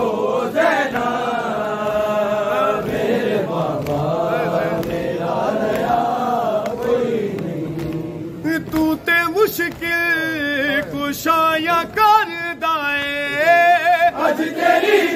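Men's voices chanting a noha together in a dense mass of overlapping voices. About halfway through, a single male voice comes to the front, singing the lament loudly with a bending, wavering line.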